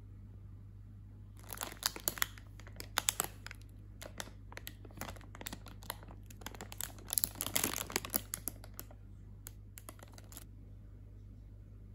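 Thin plastic produce bag of Brussels sprouts crinkling as it is handled, in two busier spells of crackling.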